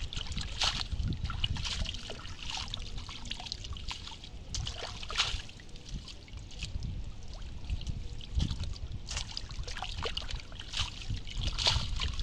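Shallow muddy water sloshing and trickling as hands stir it and pull clumps of waterweed out of it, water dripping back off the weeds in irregular splashes.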